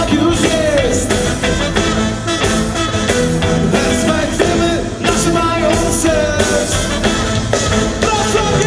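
Live reggae band playing a song through the PA, with a sung melody over guitars, bass and drums.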